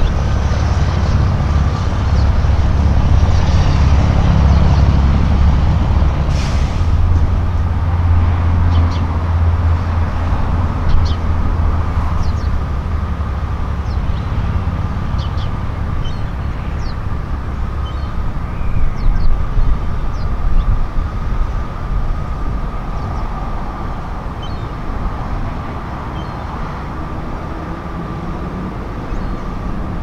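Wind buffeting the microphone, heaviest in the first dozen seconds and then easing, with a faint steady high tone underneath.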